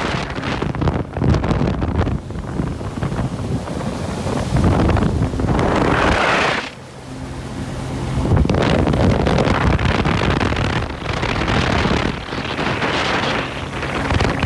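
Wind buffeting the microphone over the steady drone of a jet ski engine and rushing water while riding, dropping briefly about halfway through.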